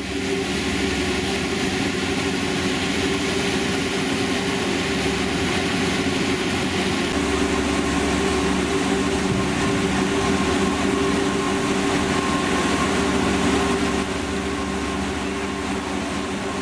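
Passenger ferry's diesel engines droning steadily as it pulls away from its berth, over the rushing churn of its propeller wash, easing off slightly near the end.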